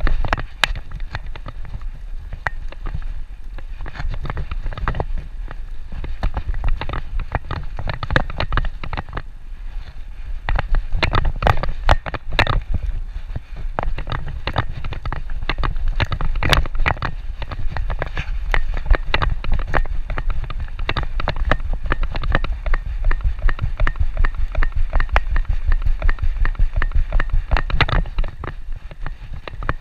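Body-mounted camera on a walking dog: steady low rumble of the harness and housing rubbing and shaking with the dog's movement, with irregular clicks and knocks in time with its steps on the concrete sidewalk, loudest in a cluster about eleven to thirteen seconds in.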